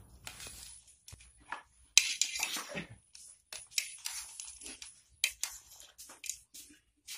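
Irregular rustling, crinkling and light clinking as small wooden sticks, paper and plastic wrapping are handled, with a sharp clatter about two seconds in.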